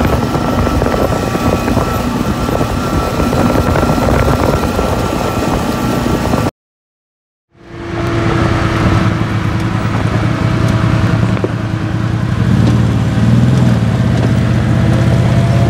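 ATV engine running while riding along a gravel road. About six seconds in the sound cuts out for a second, then the engines of ATVs and a side-by-side run close by as one drives across a gravel lot, the low rumble growing stronger near the end.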